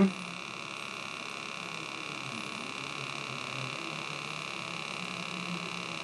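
Steady electrical hum with a faint high-pitched whine, unchanging throughout.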